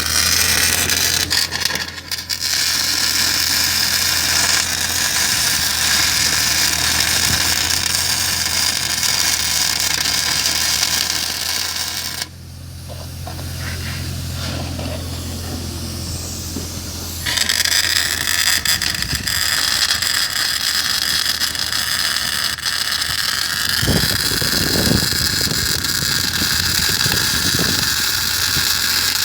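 MAG welding arc sizzling and crackling steadily, with a steady low hum underneath. The arc stops for about five seconds near the middle, then strikes again and runs on.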